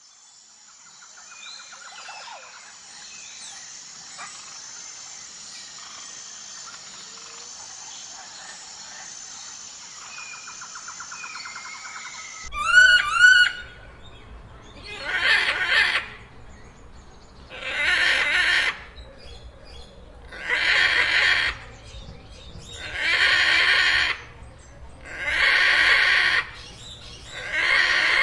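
A steady high insect drone with faint bird chirps, then about halfway a sudden switch to macaws screeching: a few quick rising and falling cries, then loud harsh screeches of about a second each, repeating roughly every two and a half seconds.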